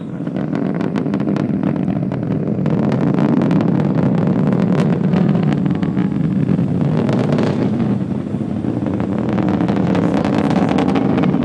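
Distant Falcon 9 rocket in ascent, its nine Merlin engines heard as a deep rumble with dense crackling. The sound swells over the first few seconds, then holds steady.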